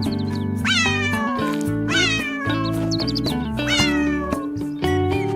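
A cat meowing over and over, about one meow a second, each one falling in pitch, over background music with sustained low notes.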